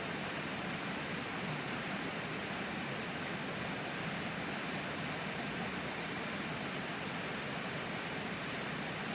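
The Tama River flowing, a steady even rush of water with no breaks. A thin, steady high tone sits above it.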